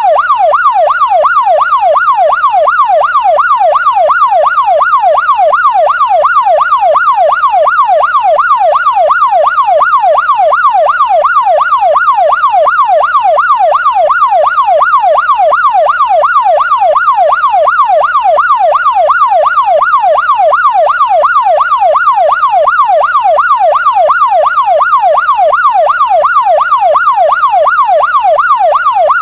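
Police siren in a rapid yelp: a single wailing tone sweeping up and down several times a second, steady and unchanging throughout.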